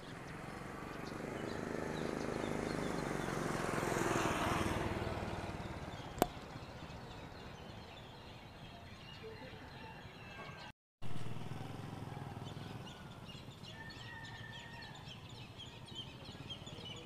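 A motor vehicle passing by, its noise swelling over a few seconds and fading away, with one sharp click in the middle. Afterwards there is quiet outdoor ambience with birds chirping.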